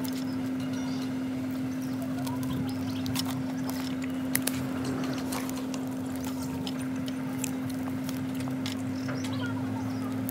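Scattered light clicks and ticks of maize cobs being handled and turned on a wire grill over a charcoal stove, over a steady low hum.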